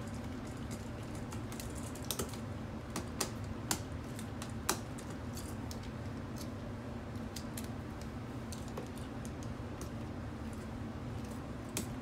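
Scattered small clicks and taps of a screwdriver and hooked copper wire on a wall receptacle's terminal screws, as a wire is hooked on and the screw tightened down. A steady low hum runs underneath.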